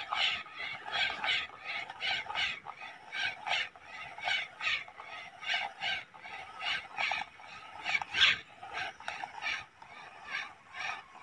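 Kastking Royale Legend II spinning reel being cranked to retrieve the line after a cast, an uneven run of short ticks about three a second.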